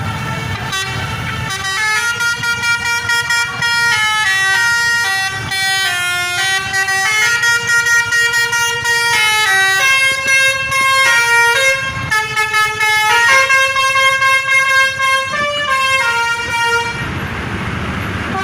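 A bus's Basuri telolet horn playing a tune of quick stepped tones. It starts about a second and a half in and stops near the end, with engine and traffic rumble underneath.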